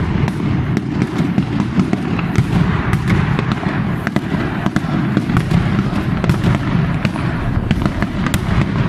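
A daytime barrage of fireworks and firecrackers: many rapid, overlapping bangs and sharp cracks merging into a continuous, loud rumble.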